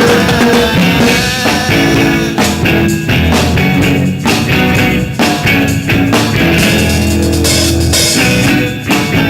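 Live rock band playing: electric guitar over a driving drum kit and bass.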